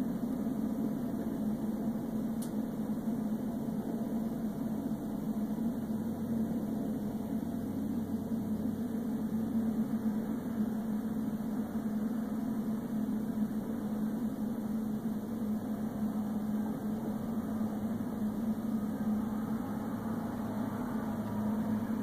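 Steady drone of vehicle engine and road noise picked up by a police car's dashcam while following slowly behind traffic, with a constant hum underneath.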